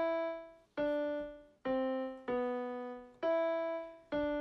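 Theme-tune intro played on a keyboard: a slow melody of single struck notes, about six in all, each fading before the next.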